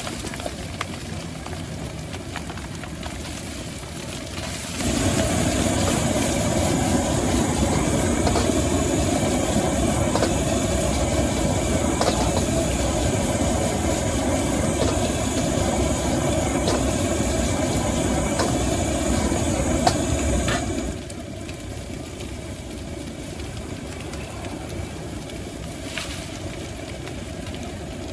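High-output gas wok burner at a street-food stall, burning with a steady hiss. It is turned up sharply about five seconds in and back down about sixteen seconds later, with light clicks of the spatula on the wok while the flame is high.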